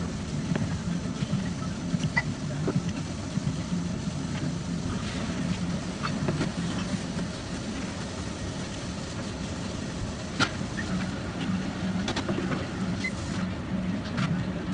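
Restaurant ambience: a steady low hum with scattered light clinks of chopsticks against a rice bowl and tableware.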